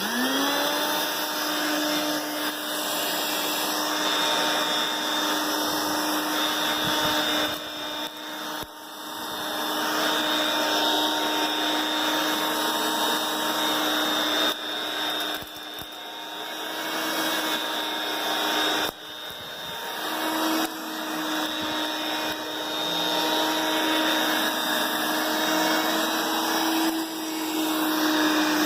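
Hoover Brush Vac handheld vacuum cleaner switched on, its small motor spinning up quickly to a steady whine over a rush of air. The level dips briefly several times before recovering.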